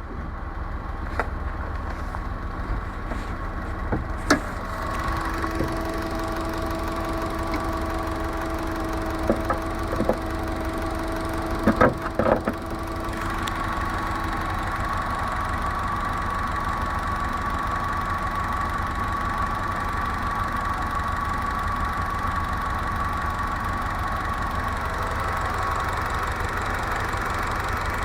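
Honda Civic's D15B 1.5-litre four-cylinder VTEC engine running steadily, with a knock that the owner traces to cylinder 1 (it disappears when that injector is unplugged) and suspects comes from the connecting-rod bearings. A few sharper clacks stand out in the first half.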